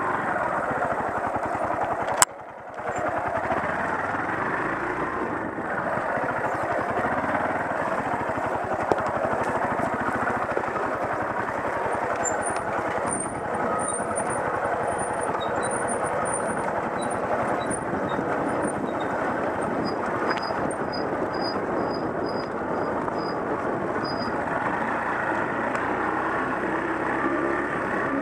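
Off-road motorcycle running steadily along a rough dirt trail, its engine noise mixed with jolting and rattle. A sharp click about two seconds in is followed by a brief drop in the sound.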